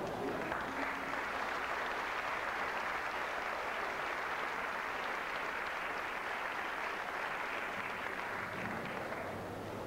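Audience applauding steadily in a large hall, dying away near the end.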